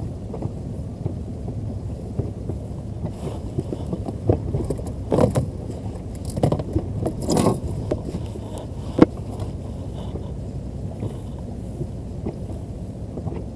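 A steady low rumble, with a cluster of knocks and scrapes in the middle and one sharp knock near the end.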